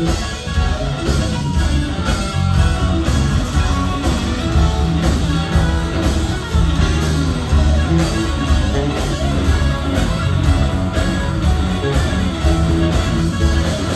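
Live band playing: electric bass, drums, keyboards and electric guitar together, with a heavy bass line.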